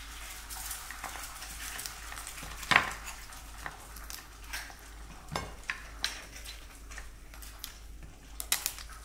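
Soy-sauce-marinated raw crab (ganjang gejang) being pulled apart by gloved hands: wet crackling and squelching of shell, meat and roe, with sharp cracks, the loudest about three seconds in. Kitchen scissors snip through the shell near the end.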